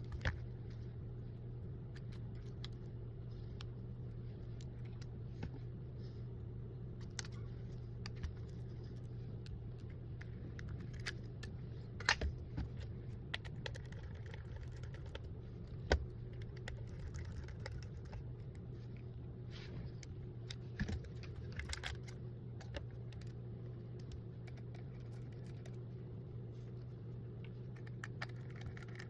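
Scattered small clicks and taps of metal tools and phone parts being handled during a smartphone screen replacement, over a steady low electrical hum. The sharpest taps come about 12 and 16 seconds in, with a quick cluster around 20 to 22 seconds.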